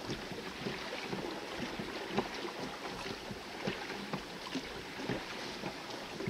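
Rowboat being rowed: water splashing and lapping against the hull as the oars dip, a steady wash with many small irregular splashes.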